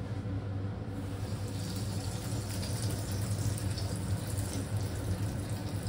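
Breadcrumb-coated veg cutlet deep-frying in hot oil in a wok: a steady sizzle with fine crackling that gets livelier about a second and a half in, over a steady low hum.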